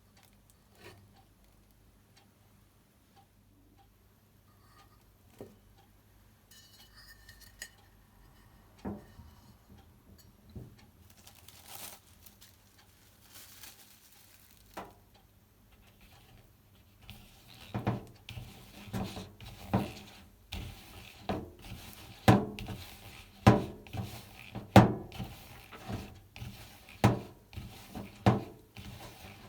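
A kitchen utensil knocking and clattering against kitchenware: a few scattered light clicks at first, then repeated sharp knocks about once or twice a second through the second half.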